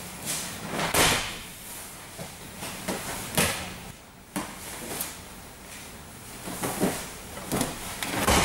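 Bodies landing on gym mats and jiu-jitsu gis rustling as a grappling sweep is drilled: a series of irregular thuds and scuffs, loudest about a second in and near the end.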